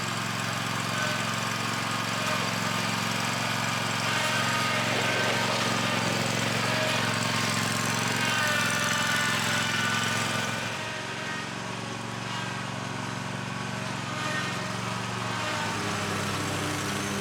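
Zero-turn lawn mower engine running steadily at a constant speed while mowing. It gets a little quieter about ten seconds in.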